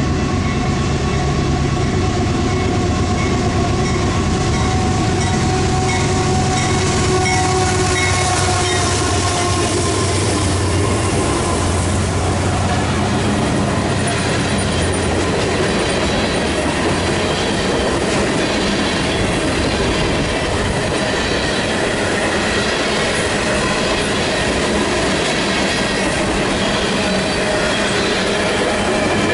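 Canadian Pacific freight train rolling through at speed behind three GE diesel locomotives. Heavy engine rumble dominates the first ten seconds or so, then gives way to the steady rolling roar and clickety-clack of tank cars and covered hoppers, with some wheel squeal.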